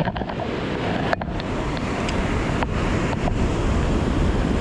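Storm-swell surf washing steadily on the shore, with wind rumbling on the microphone. A single sharp click about a second in.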